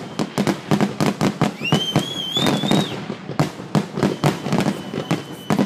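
Fireworks finale barrage: aerial shells bursting in rapid, overlapping bangs, several a second. A wavering whistle sounds for about a second, about two seconds in.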